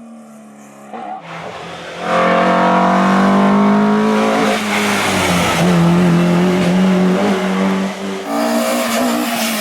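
Classic racing car's engine run hard as the car comes up and passes, getting loud about two seconds in, dropping in pitch around five seconds and rising again near the end as it shifts and accelerates.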